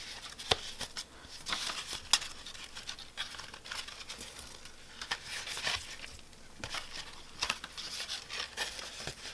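Paper being handled: sheets rustling and crinkling in irregular short bursts, with small taps and clicks.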